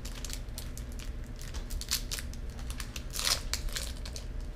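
A candy wrapper being crinkled and torn open by hand: a run of small crackles, with a louder crinkle about three seconds in.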